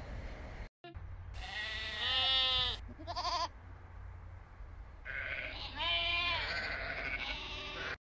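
Sheep bleating: a long wavering bleat about a second and a half in, a short one right after it, and another long bleat about five seconds in.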